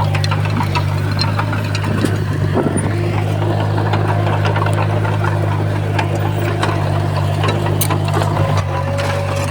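Heavy diesel earthmoving machine running steadily under load, with frequent metallic clanks and rattles over the low engine drone. The engine note shifts slightly near the end.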